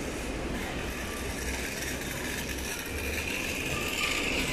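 Gusty wind buffeting the microphone outdoors: an uneven low rumble under a steady hiss, the hiss growing brighter near the end.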